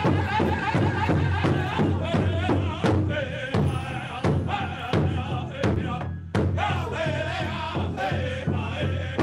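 A large hide-covered powwow drum struck in unison by several drummers with padded sticks, keeping a steady beat under high chanted singing. The song breaks off for a moment about six seconds in, then resumes.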